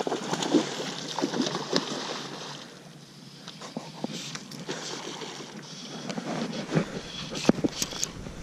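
A hooked silver (coho) salmon thrashing and splashing at the surface of shallow river water for the first two seconds or so, then dying down. Near the end come a few sharp knocks and rustling.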